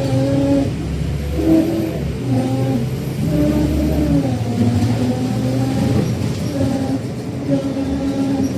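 Scania K310UD bus's DC9 engine and ZF gearbox drivetrain running under way, a loud drone with a humming tone that steps up and down in pitch every second or so.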